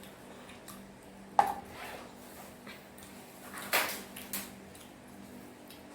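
A few short clicks and clatters of food and packaging being handled at a table while eating: one sharp click about a second and a half in, then a louder, longer clatter around four seconds in with a smaller one right after.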